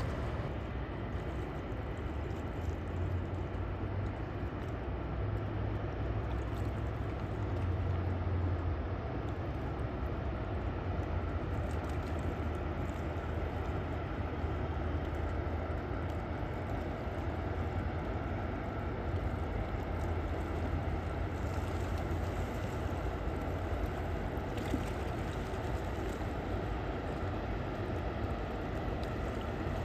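Steady low rumble of the Hanseatic Inspiration's diesel engines as the cruise ship passes.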